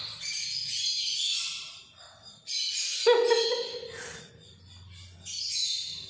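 Young Alexandrine parakeet calling in short bouts of high, scratchy chirps, with a louder, lower call about three seconds in.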